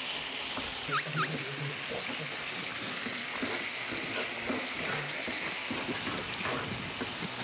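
Dak-galbi sizzling steadily in a hot pan while a wooden spoon stirs through it, with two short squeaks about a second in.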